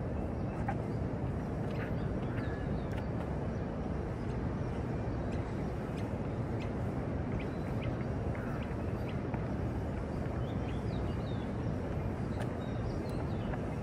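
Steady low outdoor city rumble, with scattered short bird chirps.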